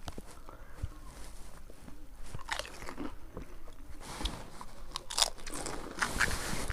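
Pani puri (fuchka) being eaten: crisp, hollow fried puri shells crunching between the teeth, then chewing, with irregular crackles.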